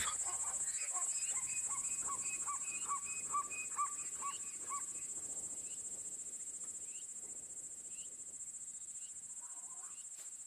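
Steady, high-pitched chorus of insects such as crickets, with a bird giving a series of short, repeated call notes, about two a second, through the first half. The whole ambience slowly fades.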